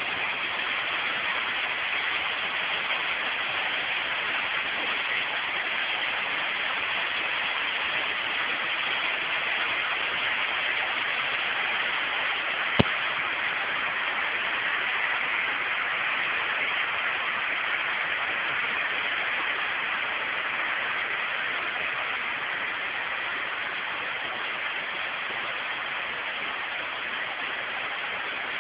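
Waterfall: the steady rush of falling water, with one sharp click about halfway through.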